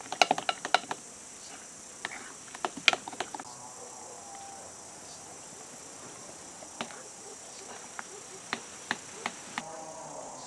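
Sharp clinks and knocks of a metal spoon and scoop against a glass mixing bowl as flour is stirred into batter: a quick run of clinks in the first second, another around the third second, then single clinks spaced out. A steady high drone of insects runs underneath.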